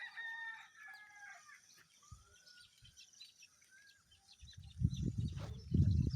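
A rooster crows once at the start, with small birds chirping faintly behind it. From about four and a half seconds a loud, uneven low rumble takes over.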